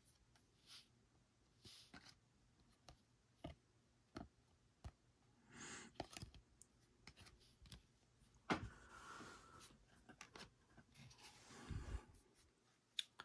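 Faint clicks and soft swishes of glossy Panini Prizm football cards being slid one behind another in the hand, with a low soft thump near the end as the stack is set down on the table.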